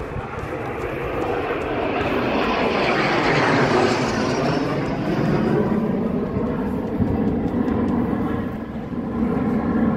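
Two Dassault/Dornier Alpha Jets, each with twin Larzac turbofans, flying past in formation: the jet noise swells to its loudest about four seconds in, with a high whine that falls in pitch as they pass, then carries on as a steady rumble.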